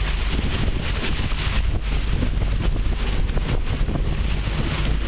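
Wind buffeting the microphone: a steady, heavy rumble that rises and falls from moment to moment, with a faint hiss of wind and water above it.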